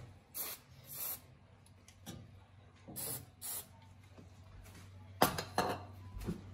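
Aerosol can of rust dissolver sprayed in four short hissing bursts, in two pairs about half a second apart, onto rusted igniter fittings. A louder clatter of knocks about five seconds in.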